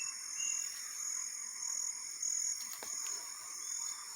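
Insects chirping in a steady high-pitched rhythm, pulsing a little under twice a second, with a few faint short whistled calls over it.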